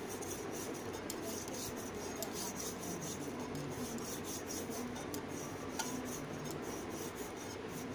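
Fingers rubbing oil over the inside of an aluminium bowl, greasing it to bake a cake in: a steady rubbing with light ticks throughout.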